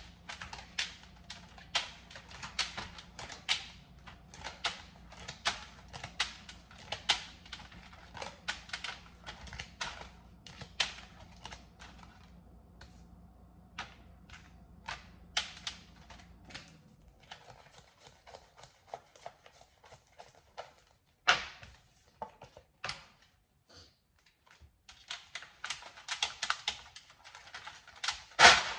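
Tarot cards being shuffled and handled, an irregular run of sharp card clicks and slaps that thins out for a while and then picks up again near the end. A low steady hum in the background stops about two-thirds of the way through.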